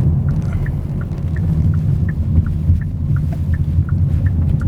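Kia K5's 2.0-litre four-cylinder engine heard from inside the cabin under hard acceleration: a loud, steady low drone mixed with road rumble, the engine noise the driver calls a 'рев' (roar). Faint short high pips repeat about three times a second over it.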